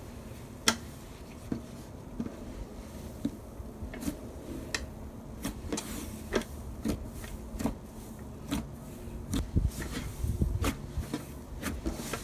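Slime being handled and squeezed by hand: a run of sharp sticky clicks and pops, sparse at first and coming thick and fast from about halfway, with some soft low squishes.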